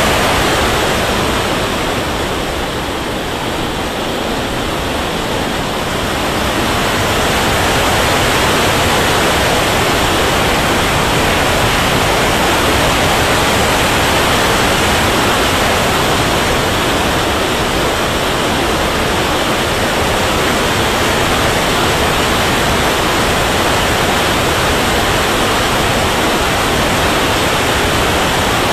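Rushing airflow and turbine noise picked up by the onboard camera of an RC turbine jet in flight: an even rush with no distinct tones. It dips slightly a couple of seconds in, then holds steady.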